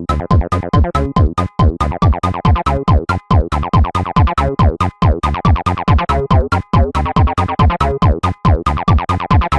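Acidcore electronic music: a fast, pounding drum-machine kick, each stroke dropping in pitch, under a dense, pulsing synthesizer line.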